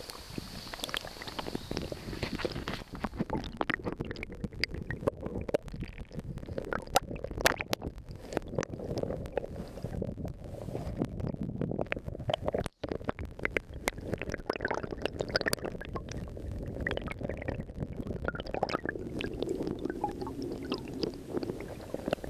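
Water splashing and gurgling close to the microphone as a hand moves in shallow river water, mixed with irregular knocks and rubbing from the camera being handled. The sound breaks off for an instant a little past halfway.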